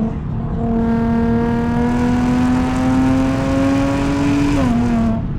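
Audi S4's supercharged 3.0 V6, through an aftermarket touring exhaust, pulling hard under full throttle with the revs climbing steadily. About four and a half seconds in the engine note drops sharply, as at an upshift.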